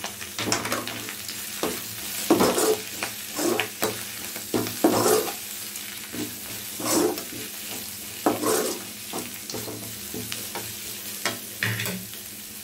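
Moringa leaves sautéing in oil in a metal kadai: a steady sizzle, with the scrape of a spatula stirring them against the pan every second or two.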